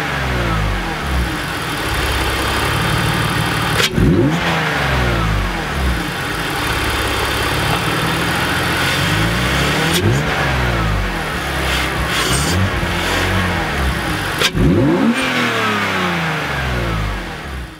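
A 2001 BMW E46 325Ci's 2.5-litre straight-six being free-revved three times. Each time the revs climb sharply and then fall back slowly to idle, with the induction noise of a Mishimoto cold-air intake's open cone filter.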